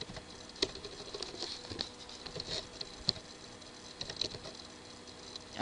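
Computer keyboard keys tapped at an irregular, unhurried pace, sounding as faint separate clicks over a low background hiss.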